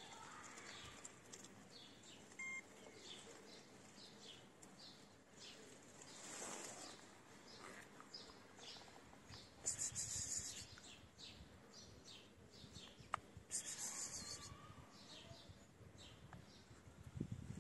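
Small birds chirping over and over, faint. Two short bursts of high hissing noise come a little past the middle, about four seconds apart.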